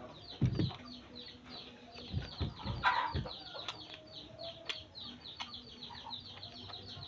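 Chickens clucking and chirping in the background, a fast steady run of short falling chirps. A few close, low thuds stand out about half a second in and again between two and three seconds in.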